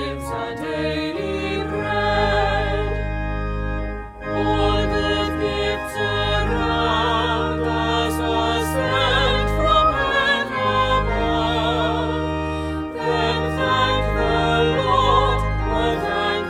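A choir singing a hymn with organ accompaniment. The organ holds steady bass notes under voices with vibrato, and there is a short break between phrases about four seconds in.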